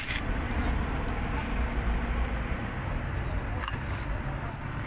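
Steady low rumble of road traffic in the background, with a few faint light clicks as a thin metal umbrella rib is handled.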